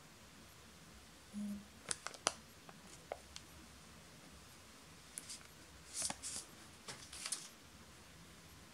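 Quiet clicks, taps and short rustles of hands handling a smartphone and peeling the plastic protective film from its screen, coming in small clusters with pauses between.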